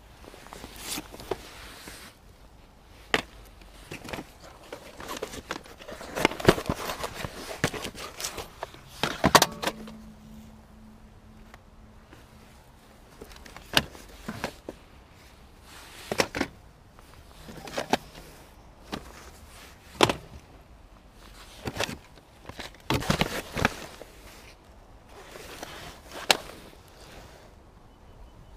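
Plastic VHS cassettes knocking and clacking against each other as they are picked up and stacked by hand, in irregular clacks every second or two. There is a busier stretch of clatter around six to nine seconds in, ending in the loudest knock.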